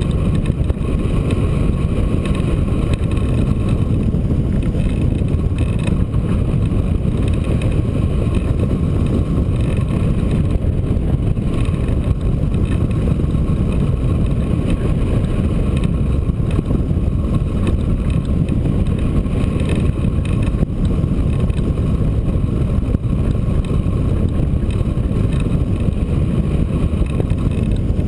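Rush of wind over a hang glider's wing-mounted camera microphone in flight: a loud, steady low rumble with no breaks.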